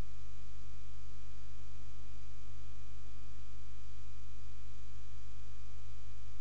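Steady low electrical hum with faint steady tones above it, unchanging throughout; no music or voices come through.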